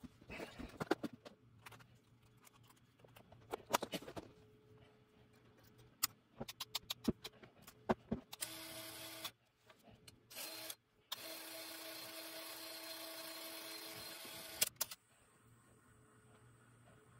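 Aiwa AD-3150 cassette deck transport mechanism: a run of sharp clicks and rattles from its levers and gears. Then its motor runs steadily with a hum, twice briefly and then for about four seconds, stopping with a click.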